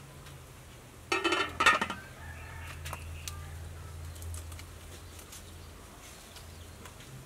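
Aluminium pot lid clattering onto a metal cooking pot about a second in, ringing briefly, followed by a few faint clicks of sticks being pushed into the wood fire.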